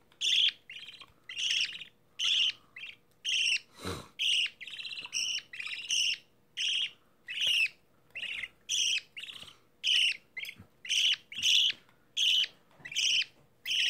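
Budgerigar chick cheeping over and over in short, high calls, about two a second, while it is held in the hand. A soft knock comes about four seconds in.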